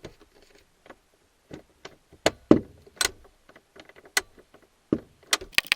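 Irregular clicks and knocks of a hand tool against metal fasteners and dashboard parts, as the fasteners are worked loose awkwardly without an extension. The loudest knocks come about halfway through, with a quick cluster of clicks near the end.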